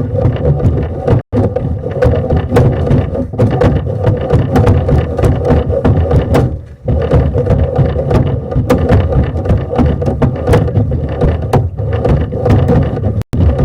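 A steady mechanical running noise, like an engine, with many sharp clicks and rattles over it. It cuts out for an instant twice.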